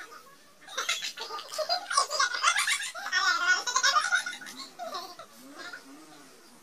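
Young men laughing heartily together: a burst of laughter starts about a second in, is loudest in the middle, and dies away over the last couple of seconds.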